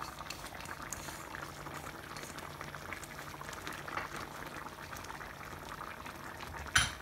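Thick, creamy curry sauce simmering in a frying pan, bubbling and popping steadily as it reduces to thicken. One short, sharp knock near the end.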